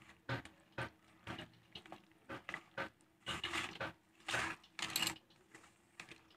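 A hand squishing and kneading raw chicken pieces in a wet coating of egg, cornflour and spice paste in a steel bowl: irregular squelches and soft knocks against the metal. A few louder, longer squelches come between about three and five seconds in.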